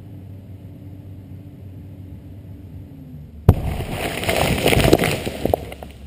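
Ammonal blasting charge buried under a heap of earth going off about three and a half seconds in: a sudden sharp boom, followed by a couple of seconds of soil and rocks clattering down. Before it, a low steady hum.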